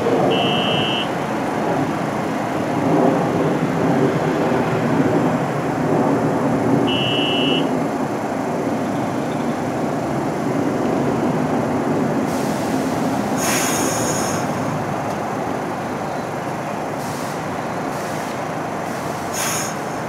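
A New York City subway train of R62-family cars running through the station with a steady rumble of wheels on rail. Two short high tones sound about six seconds apart, and a brief high hiss comes about two-thirds of the way in.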